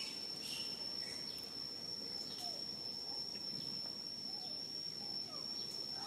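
Outdoor insect chorus: one steady, unbroken high-pitched drone, with faint scattered chirps over it.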